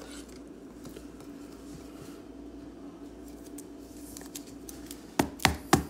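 A trading card is slid into a rigid plastic toploader, with faint plastic scraping and handling noise over a steady low hum. About five seconds in come three sharp clicks in quick succession as the plastic is handled.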